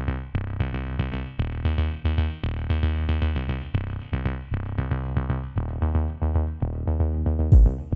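Electronic background music: synthesizer notes chopped in a steady rhythm over a drum-machine beat, with a deep bass hit and a bright swell about seven and a half seconds in.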